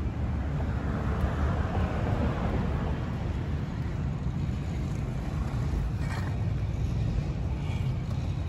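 Wind rumbling on the phone's microphone, with street traffic noise underneath; a hiss like a passing car swells and fades about a second or two in.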